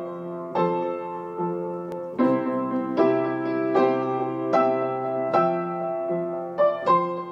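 Background piano music: soft chords struck a little more than once a second, each ringing on and fading.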